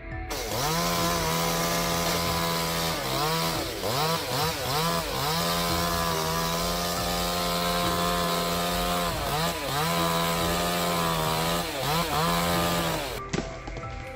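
Two-stroke chainsaw running at high revs. Its pitch dips and recovers several times as the chain bogs down in the cut, and it cuts off about thirteen seconds in.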